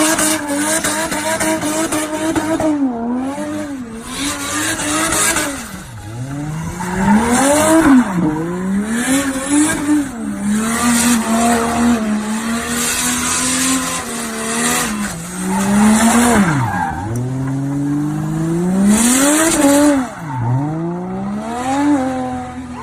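Turbocharged Ford Barra 4.0-litre straight-six revving hard. Its pitch repeatedly climbs and then drops sharply, and it holds steady high revs for a few seconds midway. Bursts of hiss come at several of the peaks.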